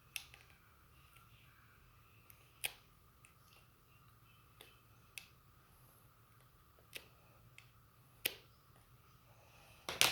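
Irregular sharp clicks and taps, about seven over ten seconds with the loudest near the end, from small hand tools and parts of an opened laptop charger being handled.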